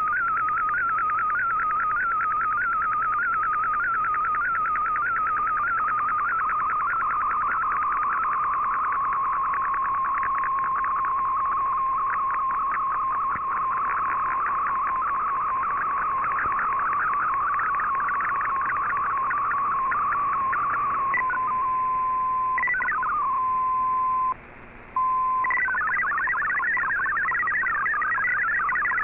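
Shortwave Radiogram MFSK digital transmission received on an Icom IC-R8600: a warbling tone whose pitch wavers in a repeating pattern a few times a second while an MFSK picture is being received. About 21 seconds in, as the picture finishes, it settles into a steady tone, drops out briefly, then turns into a fast, hopping multi-tone data warble as the text transmission resumes.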